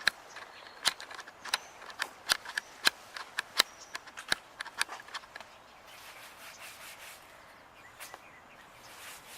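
Irregular sharp clicks and taps, roughly two a second, that stop about five and a half seconds in.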